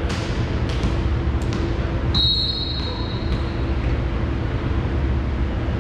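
A volleyball referee's whistle blown once, a steady shrill blast starting about two seconds in and lasting about a second, the signal that authorizes the serve. A few sharp knocks of a ball bouncing on the gym floor come before it, over a steady hall rumble.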